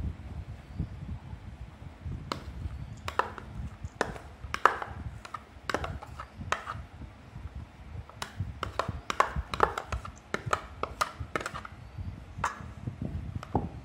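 Irregular light clicks and taps of kitchenware against a stainless steel mixing bowl as chopped onion and minced ginger are tipped in, with a faint steady hum underneath.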